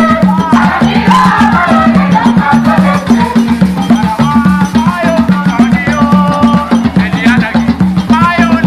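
Live traditional African music: hand drums beating a steady, driving rhythm under a group of voices singing.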